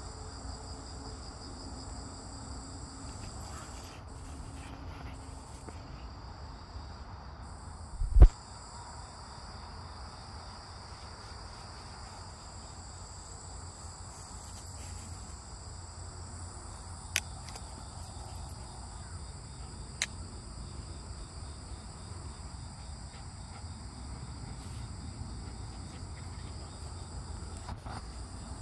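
Steady chorus of insects trilling in two high-pitched bands, the higher one pausing for a few seconds early on. A loud low thump about eight seconds in, and two sharp clicks later.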